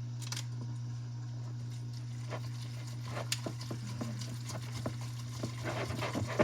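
Light clicking and tapping of a utensil against cookware as noodles and cheese are stirred, growing busier toward the end, over a steady low hum.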